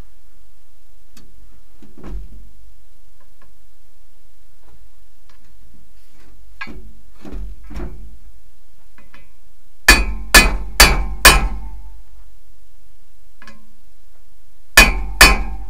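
Hammer striking a socket held on a U-joint bearing cap, driving the cap down into the driveshaft yoke so its lock-ring clip can seat. Light knocks and handling come first; then, about ten seconds in, four sharp ringing metal strikes in quick succession, and two more near the end.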